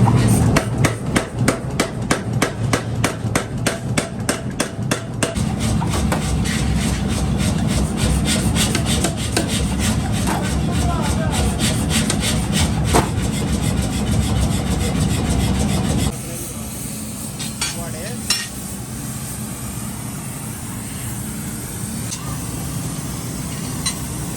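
Metalworking on a leaf-spring cleaver blade: quick, regular strikes or rasping strokes, about four a second, for the first five seconds, then denser rasping over a steady machine hum. About sixteen seconds in it drops to a quieter steady noise with a few clicks.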